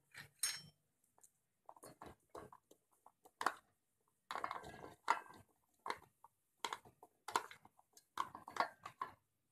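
Chopped onion pieces dropping into an empty stainless-steel mixer-grinder jar as they are pushed off a plastic chopping board with a knife: a scatter of short, irregular knocks and scrapes.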